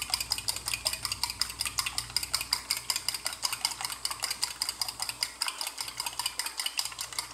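Raw eggs being beaten with a fork in a ceramic bowl: a quick, steady clicking of metal tines against the bowl, several strokes a second.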